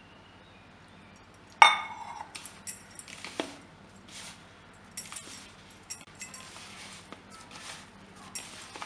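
A spoon clinks sharply against the bowl about a second and a half in, followed by repeated soft rustling and scraping as a hand mixes and squeezes damp, crumbly rice flour, jaggery and coconut dough in a plastic bowl.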